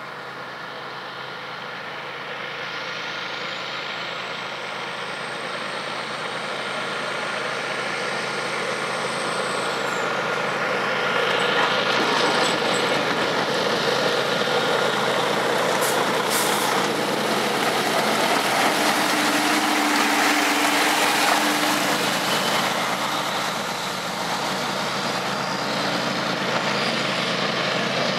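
GE ES44AC diesel-electric locomotive with its twelve-cylinder engine, leading a loaded grain train. Its engine and the train's running noise grow steadily louder as it approaches, then hold loud from about twelve seconds in. A thin high whine rises and then holds for several seconds in the first part.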